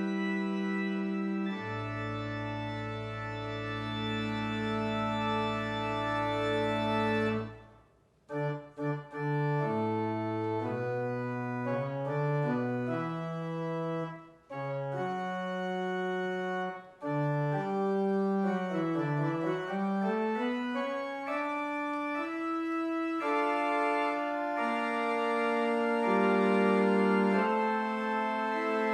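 Organ music: held chords, then a short break about eight seconds in, followed by shorter detached notes and moving melodic lines, ending on full sustained chords.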